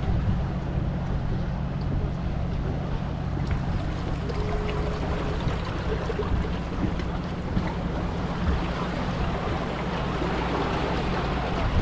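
Wind buffeting the microphone over water washing against the rocks, with the steady low drone of a passing fishing boat's engine.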